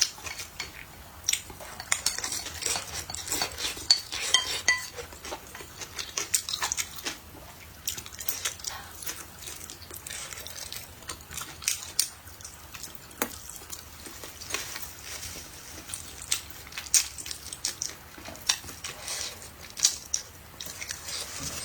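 Eating utensils clicking and scraping against a bowl and dishes, with irregular sharp clinks scattered throughout and some wet stirring and eating sounds.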